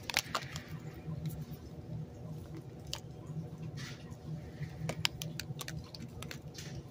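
Scratchy rustling and scattered clicks of a plush toy being handled and rubbed close to the recording phone, over a steady low hum. The sharpest clicks come just after the start and about five seconds in.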